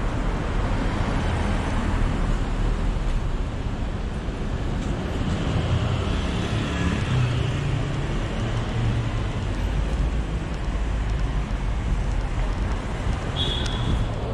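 Steady rumble of a kick scooter's wheels rolling over paving slabs, mixed with city traffic noise. A short high chirp sounds near the end.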